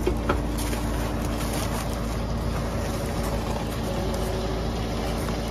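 Concrete mixer truck's engine running steadily as the drum discharges wet concrete down the chute: an even drone with a low rumble and a few held hum tones.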